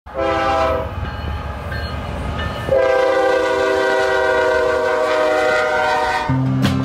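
BNSF diesel freight locomotive's air horn: a short blast, then about a second and a half later a long blast of about three and a half seconds, over the low rumble of the passing train. This fits the closing short-and-long of the horn signal for a grade crossing. Acoustic guitar music starts near the end.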